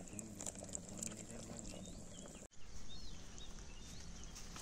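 Faint outdoor ambience with small birds chirping. The chirps are clearest after a sudden break about halfway through, and a faint low hum runs under the first half.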